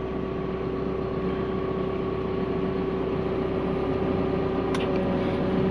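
Cat 316E excavator's diesel engine idling, heard from inside the cab: a steady hum with a steady whine over it, growing slightly louder. A light click near the end.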